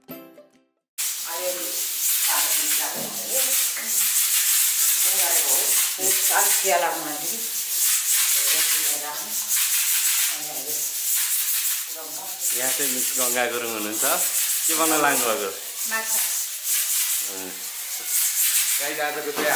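Several people's voices talking over a loud, steady hiss, starting about a second in after the end of a short music jingle.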